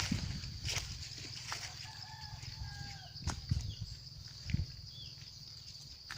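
Chickens calling softly, with a few drawn-out low notes and short falling chirps, over a steady high insect drone, with a few footstep thumps in the leaf litter.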